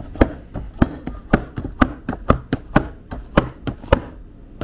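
Pan of cake batter being tapped repeatedly, about four knocks a second, to bring air bubbles up and burst them before baking. The knocks pause briefly near the end.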